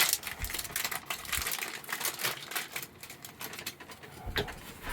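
Irregular run of light clicks and rattles from small parts being handled: the USB socket and its screws being turned over and looked at.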